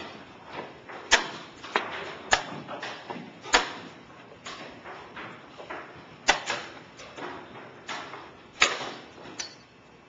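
Chess pieces knocked down hard on the board, with clock presses, in a fast blitz game: a quick string of sharp wooden clacks and knocks, about a dozen in ten seconds, the loudest a little after one second, around three and a half, around six, and near nine seconds.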